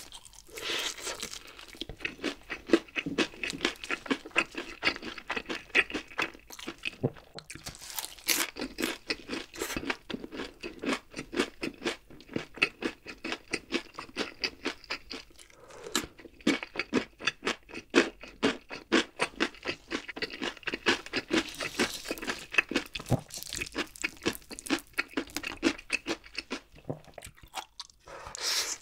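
Close-up crunching and chewing of crispy honey-glazed fried chicken, a fast run of crisp chewing strokes broken by a few short pauses.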